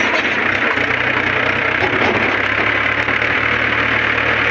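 Farm tractor's diesel engine running steadily, heard from the seat: a low, even throb under a loud, constant mechanical noise.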